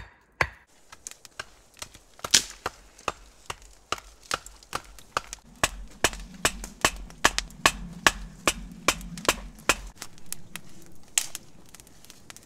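Hatchet blows on wood: steady strikes about two a second, pounding a wooden stake into frozen ground, then after about a second a faster, irregular run of sharp knocks and cracks.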